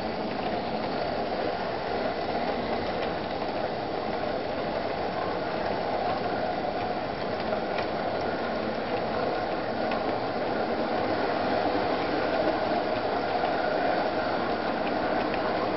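Model train running along sectional track: a steady mechanical whirring rattle of the locomotive's gearing and the coach wheels on the rails, growing a little louder in the second half.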